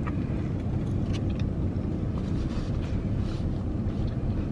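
Car engine idling, a steady low rumble heard inside the cabin, with a few faint clicks over it.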